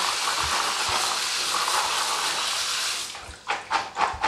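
Kitchen tap water running into a plastic colander of Thai basil leaves over a steel bowl, rinsing off the baking-soda soak: a steady rush that stops about three seconds in. A few short knocks follow as the wet colander is handled in the sink.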